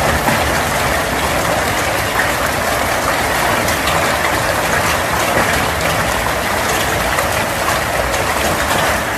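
Hailstorm: hail pelting down hard, a loud, steady, dense clatter of countless small stones striking the roof and ground.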